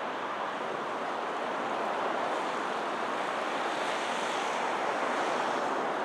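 Steady, even rushing outdoor noise with no distinct pecking strikes standing out.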